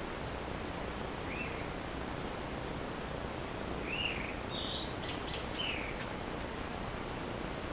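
A small bird chirps three times, short arched notes about a second in, around four seconds in and near six seconds, over a steady background hiss.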